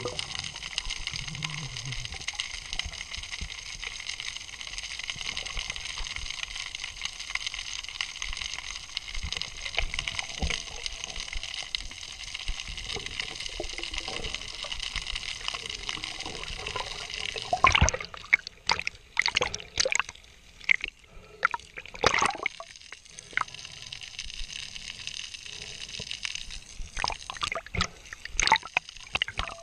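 Underwater ambience through a waterproof camera housing: a steady hiss with faint steady tones. About two-thirds of the way through it gives way to irregular splashing and sloshing as the camera comes up to the water's surface.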